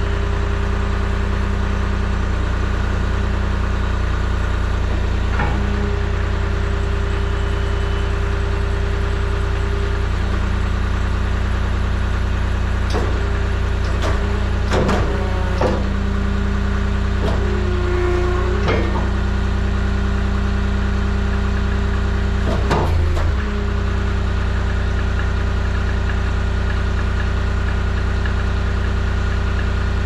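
Skid steer engine running steadily, with the hydraulics working the mounted firewood processor in short spells about halfway through and again a little later, the engine note wavering briefly under the load.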